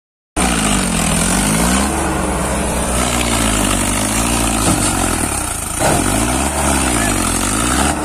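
Diesel engines of a Mahindra Arjun 555 DI tractor and a JCB 3DX backhoe working hard together, revs rising and falling again and again, as the tractor with its loaded trolley is pushed out of deep mud.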